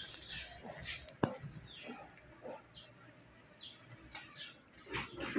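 Several short, high chirps that fall in pitch, from an animal. There is a sharp click about a second in and a louder noisy burst at the very end.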